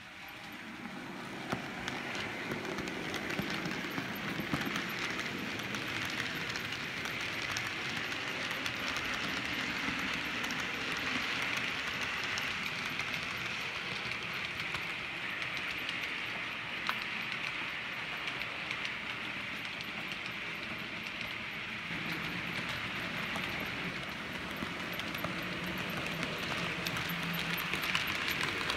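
An HO-scale model train, a rake of Gass covered wagons, rolling steadily along the layout track, with a few sharp clicks from the wheels. A low hum joins in near the end.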